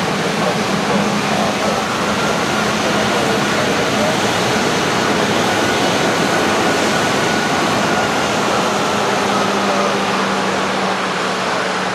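Bombardier Global Express business jet's engines running with a steady roar, with a faint high whine that rises a little and then falls again.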